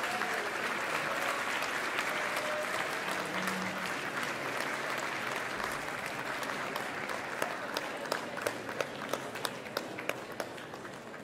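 A large crowd applauding in a hall. Near the end the applause thins and a few close, sharp claps stand out at about three a second.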